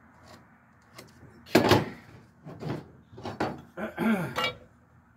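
A short length of wooden 4x4 post being handled, turned and set down on a pickup's tailgate: a few wooden knocks and scraping thuds, the loudest about a second and a half in, with a short scrape near the end.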